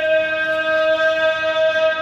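A single long musical note held steady in pitch, with bright overtones, sounding during the honour guard's ceremony.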